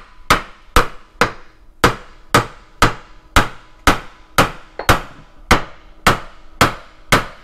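Hammer tapping steadily on a transfer case's tail housing, about two sharp blows a second, each with a short metallic ring. The housing is sealed on with RTV, and the taps are breaking that seal so it can come off.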